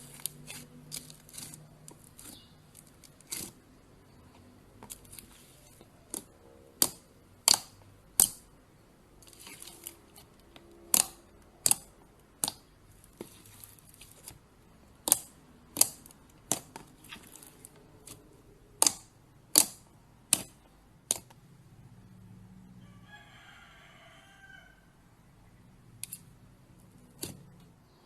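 Slime being pressed and played with, making many sharp, separate clicking pops at an uneven pace. A brief wavering squeak comes about three-quarters of the way through.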